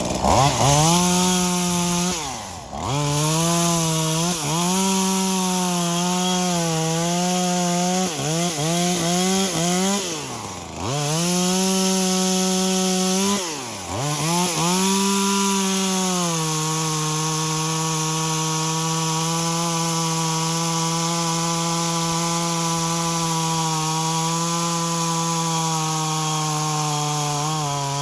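Two-stroke top-handle chainsaw, a V-Modest 2511T clone of the Echo 2511T, running at high revs and cutting wood. The revs dip and recover several times in the first half, then hold steady at a slightly lower pitch from a little past halfway.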